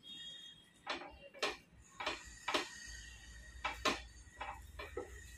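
Spatula knocking and scraping against a non-stick tawa as a cooked cheela is loosened and lifted off: a string of short irregular clicks and knocks, about eight in all.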